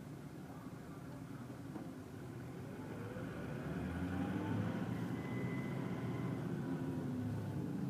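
Street traffic heard from inside a car's cabin in a traffic jam: the low rumble of idling and creeping engines, growing louder about halfway through.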